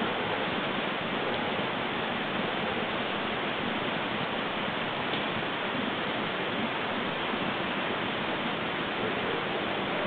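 Steady, even hiss with no distinct sounds in it.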